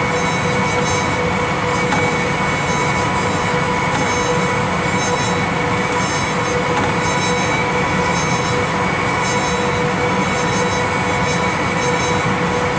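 Amtrak passenger train rolling slowly on jointless track, heard from inside: a steady rumble of wheels and running gear with a constant high whine over it.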